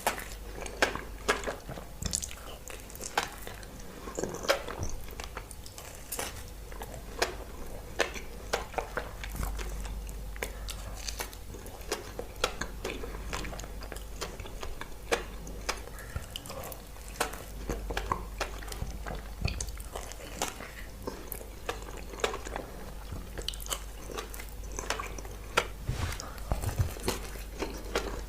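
Close-miked eating of glazed donuts: biting and chewing, with many short wet clicks and mouth sounds throughout.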